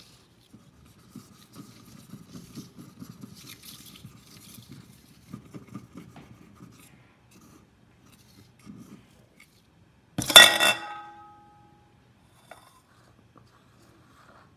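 A thin knife scraping and rubbing around the centre tube of an aluminium chiffon cake pan, soft and irregular for several seconds. About ten seconds in, one loud metallic clang that rings on briefly at several pitches, as the aluminium pan is knocked or set down on the granite counter.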